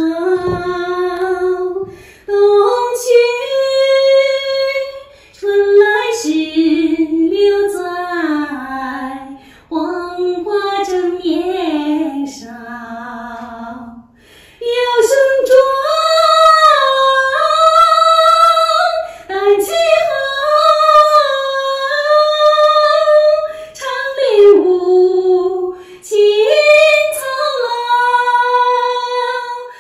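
A woman singing a cappella, one voice with long held notes and short breaths between phrases. About twelve seconds in her voice sinks to a soft low note and breaks off briefly because she runs out of breath, then she carries on at full voice.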